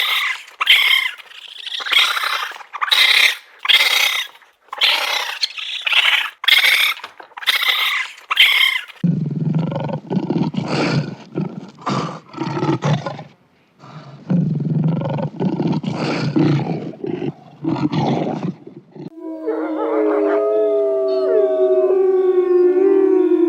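A run of animal calls. First comes a rapid series of short, high calls repeated about every second. About nine seconds in, these give way to lower, coarser calls in bunches. Near the end, several long, wavering calls overlap and slide up and down in pitch, like a howling chorus.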